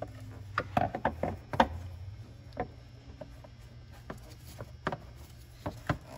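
Irregular plastic clicks and knocks, most bunched in the first two seconds with a few more later, as the lower half of a plastic factory airbox is handled and pressed down onto its rubber mounting grommets, clicking into place.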